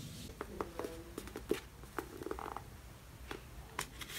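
Books being handled: a scattering of light taps and clicks, with a few short blips in between.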